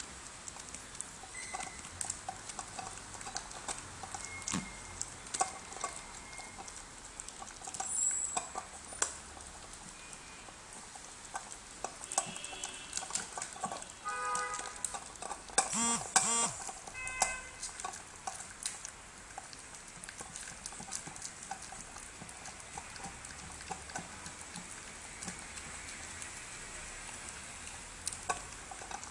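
Small poodle eating from a stainless-steel bowl, noisily smacking and slurping its food. Quick, irregular clicks of teeth and food against the metal run throughout, with a louder clatter and brief ringing from the bowl about halfway through.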